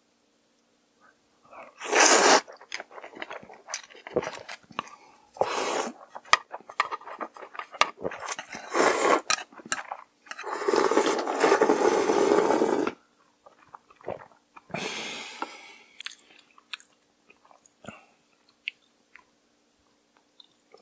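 Thin somyeon noodles in cold broth being slurped in several loud, noisy pulls, the longest lasting about two seconds near the middle. Wet chewing and small mouth clicks fall between the slurps.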